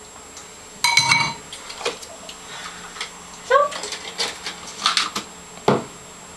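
Kitchen clatter: dishes and cutlery clinking and tapping on a counter, with a sharp knock near the end. A couple of short wordless vocal sounds are mixed in, one about a second in and another around the middle.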